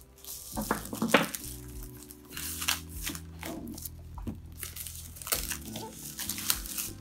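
Thin plastic shrink-wrap crinkling and tearing in irregular crackles as it is peeled off a cardboard box, over steady background music.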